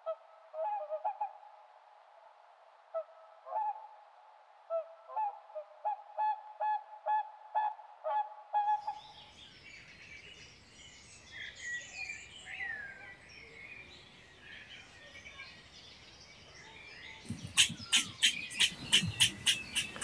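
Waterfowl honking in short repeated calls, sounding thin, for about the first nine seconds. Then small birds chirping over a soft background hiss. Near the end comes a run of sharp clicks, about four a second.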